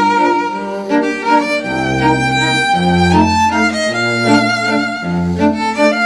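Background music: a slow instrumental piece of held melody notes over a low bass line that moves to a new note about once a second.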